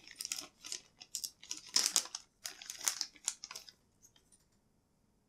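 Plastic bait bag crinkling and rustling in the hands as a soft-plastic finesse worm is pulled out of it: a quick run of rustles for about three and a half seconds, then it stops.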